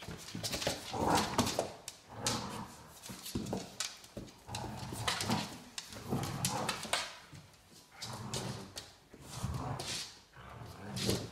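A Rhodesian Ridgeback puppy and a bigger dog vocalising in repeated bouts of about a second each, with barks, as they tug at a soft toy in play.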